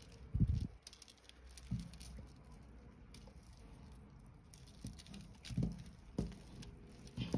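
Handling noise from beads and crystal string being worked by hand while a double knot is tied: soft rustling and light clicks of the beads, with a few dull bumps as the string is pulled tight.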